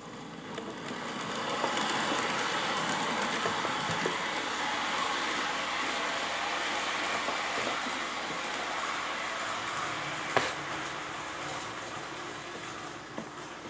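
Model electric train pulling away and running along the track: the steady running noise of its motor and wheels on the rails, building over the first couple of seconds and easing off near the end as it moves away. One sharp click about ten seconds in.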